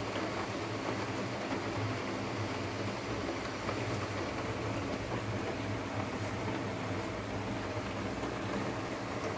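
Rain pouring steadily, an even hiss with no breaks, over a low steady hum.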